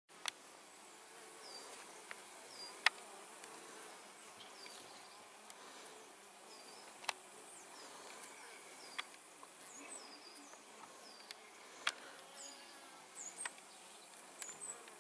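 Honeybees buzzing at a wooden hive entrance, a steady low hum with a few sharp clicks scattered through it and short high chirps in the background.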